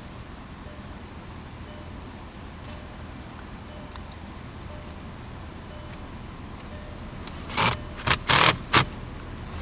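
Hard parts being handled at a car's steering column: a quiet stretch with a faint regular ticking, then a quick run of four loud clattering knocks near the end.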